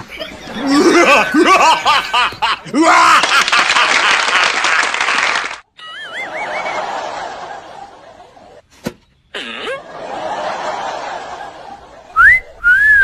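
Overdubbed comedy sound effects. The first half is a burst of snickering laughter. After it come warbling whistle tones, and near the end a quick rising slide-whistle glide.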